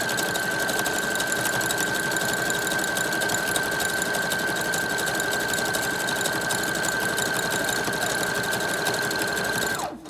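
Brother electric sewing machine running fast on a zigzag stitch through doubled hair weft tracks: a steady rapid needle clatter over a high motor whine. Near the end the whine drops in pitch and the machine stops.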